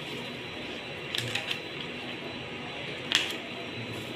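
Paper and a plastic sleeve crinkling as a manual and warranty card are handled and unfolded, with a few short sharp crackles: three close together a little over a second in and a louder one about three seconds in.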